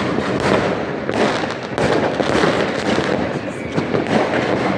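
Many fireworks and firecrackers going off all around at once: a dense, unbroken barrage of bangs and crackling.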